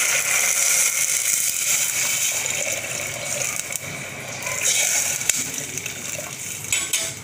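Water poured from a vessel into a pressure cooker over the fried rice-and-dal seasoning, gushing and splashing. The pour eases about three seconds in and picks up again near five seconds, with a single short knock about five seconds in.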